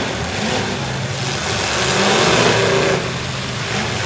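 Several demolition-derby pickup trucks' engines revving and running loud together, swelling to their loudest around two seconds in and easing off about a second later.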